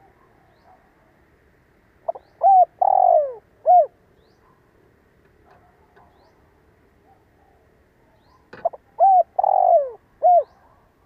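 Spotted dove (cu gáy) cooing: two phrases of several hooting notes, about six seconds apart, each with one longer, blurred coo in the middle.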